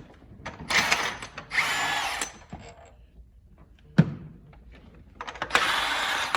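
Power tool run in three short bursts, the last about five and a half seconds in, with a single sharp knock about four seconds in.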